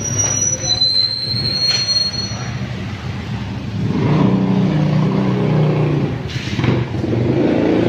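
A high, steady squeal lasting about two seconds, followed from about four seconds in by the louder running of a motor vehicle engine.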